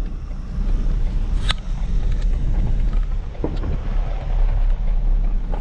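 Ford Ranger ute driving slowly along a rough dirt track, heard from inside the cab: a steady low engine and road rumble with a few short knocks and rattles from the bumpy surface.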